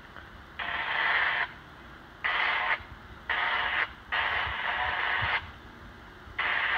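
Radio scanner speaker hissing with static in about five short bursts, each starting and cutting off sharply. These are transmissions keying up on the fire-department channel with no voice.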